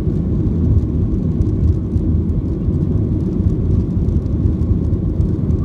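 Boeing 737-700 cabin noise in the initial climb just after takeoff: the CFM56-7B turbofans at climb power and the rushing air give a steady, deep noise through the fuselage.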